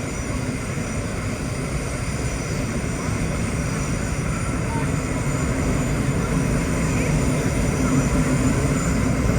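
Vintage R1-9 subway train running on the rails, a steady rumble of motors and wheels that grows a little louder in the second half.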